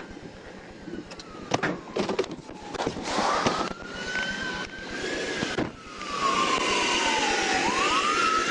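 Emergency vehicle siren wailing: one slow rise and long fall in pitch, then rising again near the end, over traffic noise and a few sharp knocks.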